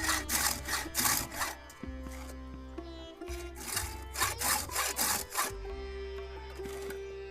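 Hand file rasping across the cutting teeth of a chainsaw chain in runs of quick strokes, sharpening the chain: about four strokes at the start, one around two seconds in, and a run of about seven in the middle.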